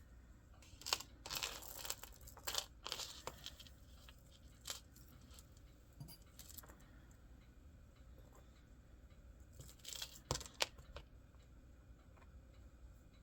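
Jewelry being handled at close range: crinkling and rustling of a small bag with light clicks of beads and metal pieces. It comes in two short spells, one about a second in and one near ten seconds.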